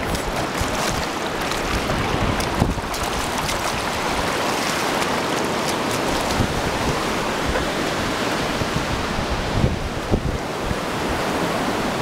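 Shallow surf washing up the beach, a steady rush of water with wind buffeting the microphone, and a few short thumps.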